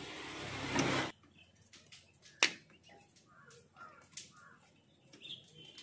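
Quiet workshop sound: a rushing noise for about a second that cuts off suddenly, then a few sharp metallic clicks as a 3 mm Allen key works the bolts of a Royal Enfield Classic 350's engine oil pump. The loudest single click comes about two and a half seconds in. Faint bird chirps sound in the background.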